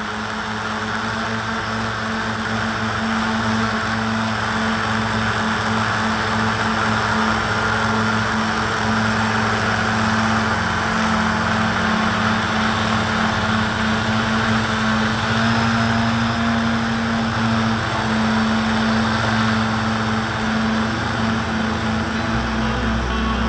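Self-built tricopter's brushless motors and propellers in flight, a steady buzzing drone with rushing wind and propeller-wash hiss, picked up by the camera strapped to the frame.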